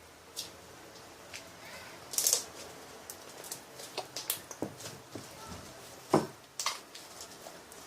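Sticky homemade glue slime being kneaded and pulled in the hands, giving irregular wet clicks and snaps, the loudest about two seconds in and again about six seconds in.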